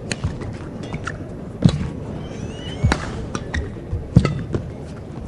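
Badminton rally: a racket strikes the shuttlecock three times, about a second and a quarter apart, the players taking turns. Short shoe squeaks and footfalls on the court mat come between the hits, over the steady background noise of the hall.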